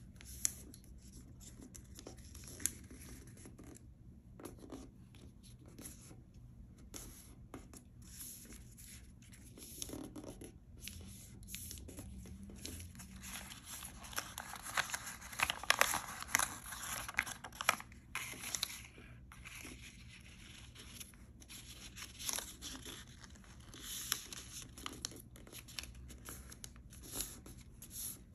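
Hands folding and creasing sheets and strips of origami paper: paper rustling, crinkling and rubbing, with a busier stretch of handling about halfway through.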